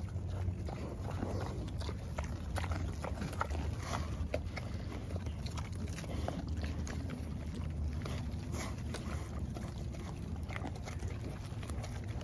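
Pigs eating a pumpkin close up: wet chewing and crunching of the rind and seeds, in a run of many short crackles and clicks.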